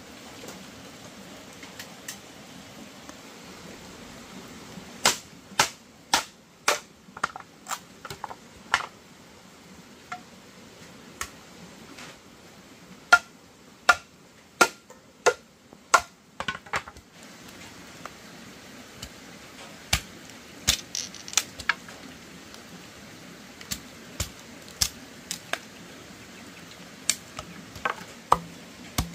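Blows from a hand tool on wood: sharp separate knocks in irregular runs, at times about two a second, with pauses between runs. Some knocks carry a brief ring.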